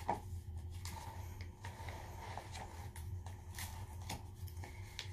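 Paper rustling and being handled, with scattered light taps and scrapes, as the pages of a book are turned, over a low steady hum.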